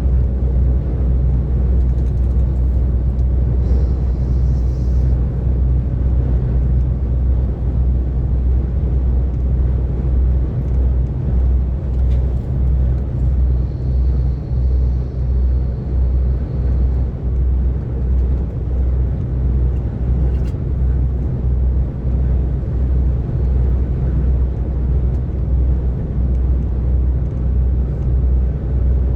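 DAF XF 460 lorry's straight-six diesel cruising at motorway speed: a steady low drone of engine and road noise with a slow pulsing in the deep hum.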